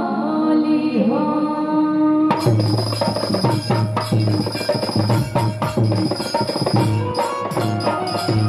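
Live Bhojpuri folk-style stage music: a woman's sung line over a held accompanying note, then about two seconds in the band's drums come in with a steady, busy rhythm.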